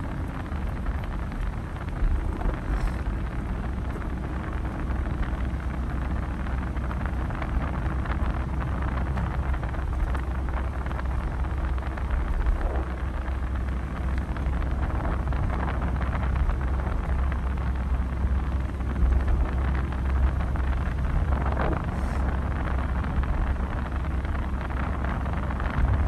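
Road noise inside a moving car at expressway speed: a steady low rumble of tyres and engine with wind hiss over it.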